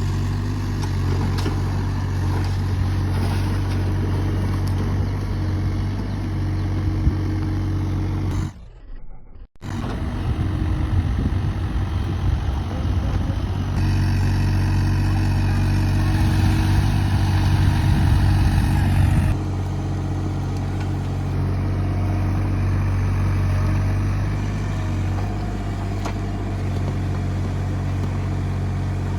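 Kubota U30 mini excavator's diesel engine running steadily. About nine seconds in the sound drops almost to silence for a second. From about fourteen to nineteen seconds in it is louder and busier, as if under load, then it settles back to a steady run.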